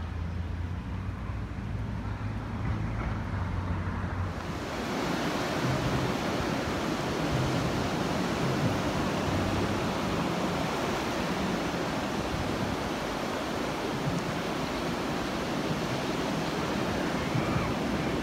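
Ocean surf breaking and washing up the beach, a steady loud rush that starts suddenly about four seconds in, after a few seconds of low rumble.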